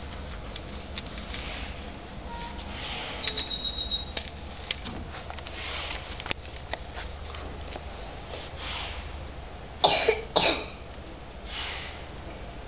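A person coughs twice in quick succession about ten seconds in, over a steady low hum and scattered small clicks. A short high-pitched pulsing tone is heard about three seconds in.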